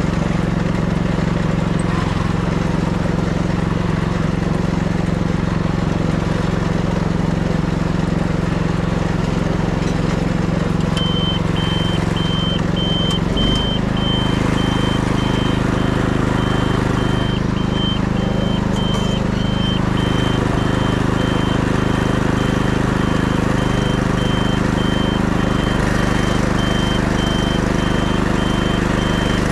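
OREC Weedman SJ800 riding paddy weeder's engine running steadily, its note stepping up slightly about thirteen seconds in. From about eleven seconds in, a high-pitched beep repeats at a steady rhythm over the engine.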